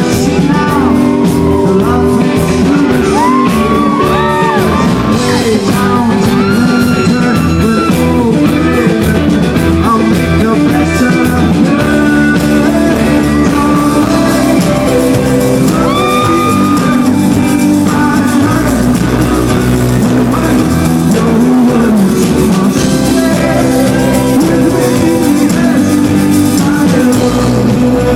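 Rock band playing live with a lead vocalist singing over electric guitars, bass and drums, heard loud and continuous in a large concert hall.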